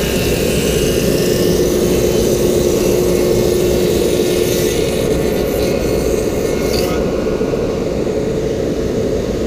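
A 24-inch Oliver thickness planer running and cutting a gang of narrow boards fed through side by side, with a dust collection system running. The sound is a loud, steady machine noise, with a hum that fades about halfway through.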